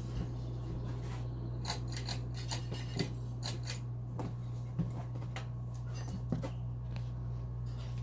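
Ceiling fans running with a steady low motor hum, with a scatter of irregular sharp, light clicks over the middle few seconds.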